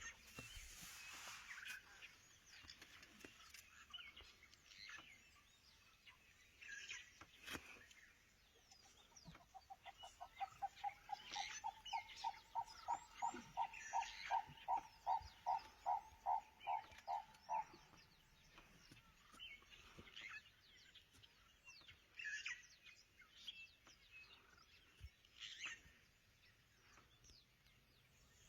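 Faint outdoor bush sounds: a run of about two dozen evenly spaced, same-pitched call notes from an animal, building in loudness and then stopping. Short high bird chirps are scattered before and after.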